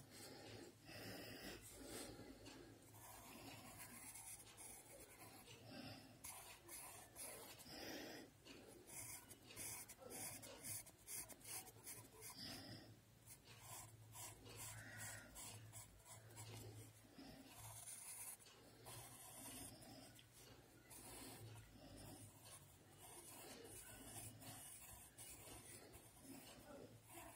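Faint scratching of a graphite pencil on paper, in short irregular strokes as a design is sketched, over a low steady hum.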